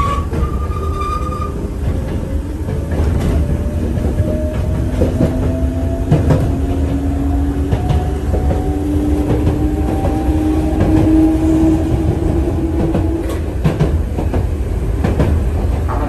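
Enoden electric train running, heard from inside the carriage. Its motor whine rises slowly in pitch as the train gathers speed, over a low rumble and scattered clicks of the wheels on the rails.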